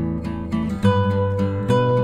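Background music: a strummed acoustic guitar, changing chord a little under a second in.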